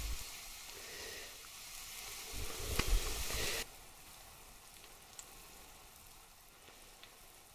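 Zucchini rings and quail eggs sizzling in hot oil in a frying pan. The sizzle is louder for the first three and a half seconds, then drops suddenly to a quieter, steady sizzle.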